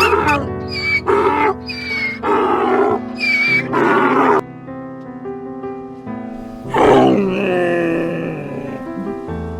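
Animal calls over background music: a run of short calls in the first four seconds, then one long, loud call falling in pitch about seven seconds in.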